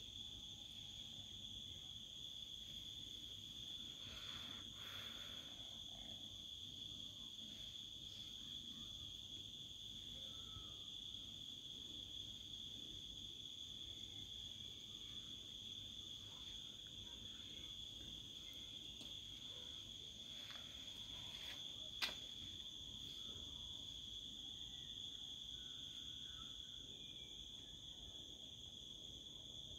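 Insects trilling in one steady, high, unbroken tone, with a single sharp click about two-thirds of the way through.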